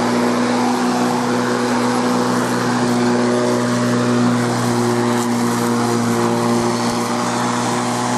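Sun Joe corded electric lawn mower running steadily: a constant motor hum under a wash of blade and air noise, pretty loud.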